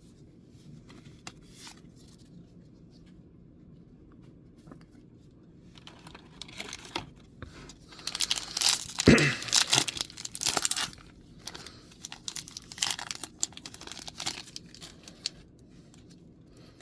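A Magic: The Gathering booster pack wrapper being torn open and crinkled by hand, after a few seconds of faint handling ticks; the crackling is loudest in the middle and tapers off in short rustles.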